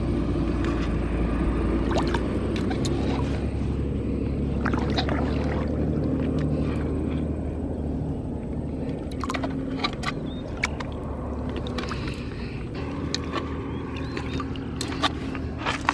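Steady low rumble of shallow river water around a wading person, with scattered sharp clicks of pebbles knocking together as a hand rummages through the stony riverbed.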